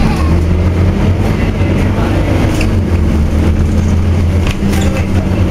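Scania OmniCity double-decker bus's five-cylinder diesel engine droning steadily under way, heard from inside the passenger saloon, with a few light rattles and clicks.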